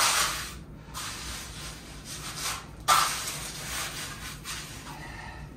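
Hand trowel scraping and spreading wet cement across a floor patch, in a few long scraping strokes, the loudest starting about three seconds in.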